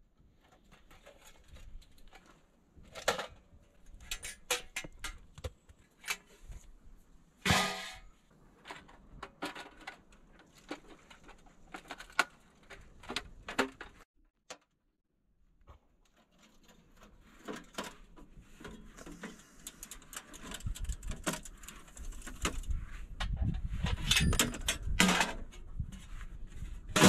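Sheet-metal parts of a portable wood stove clinking and clanking as they are handled and fitted together, with one louder ringing clank about seven and a half seconds in. A low rumble runs under the handling in the last several seconds.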